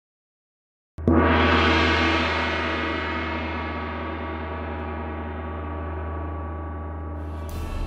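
A single gong-like hit about a second in, a title sting, its many overtones ringing and slowly fading over a steady low hum. Near the end other music begins to come in.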